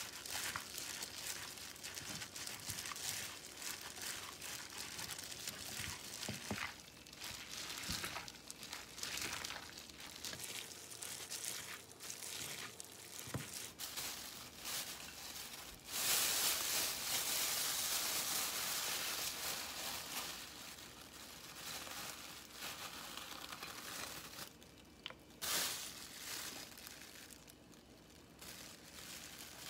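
A disposable plastic glove crinkling as wet noodles are tossed by hand in spicy sauce in a glass bowl, with small squishing and clicking noises. A louder stretch of rustling comes about halfway through.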